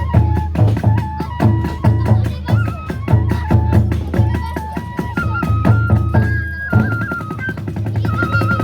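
Kagura hayashi music: a bamboo flute playing a stepped melody over fast, regular drum strokes, about two a second.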